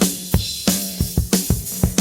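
Drum kit playing a steady beat, several hits a second.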